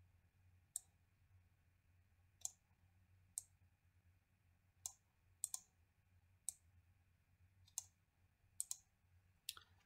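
Computer mouse button clicking about a dozen times, single sharp clicks at irregular intervals with a few quick double clicks, over a faint low hum.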